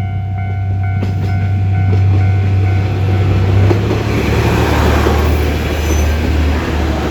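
JR Shikoku 1200- and 1500-series diesel railcars running through a level crossing: a low engine drone and rail rumble build up, and the drone drops in pitch about four seconds in as the train goes by. The crossing's electronic warning bell rings with a repeating ding at first, then is covered by the train noise.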